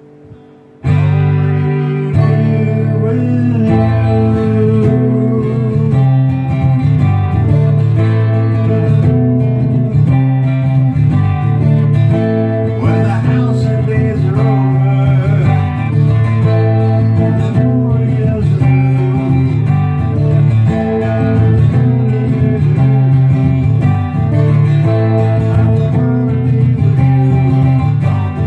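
Acoustic guitar strummed and picked through an instrumental passage of a song, coming in suddenly just under a second in.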